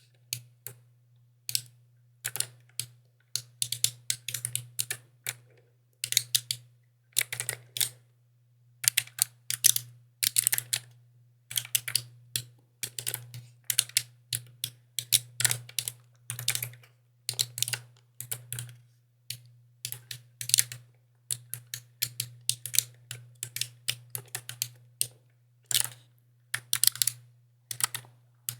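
Mechanical keyboard being typed on: clicky keystrokes in quick irregular bursts with short pauses between, over a steady low hum.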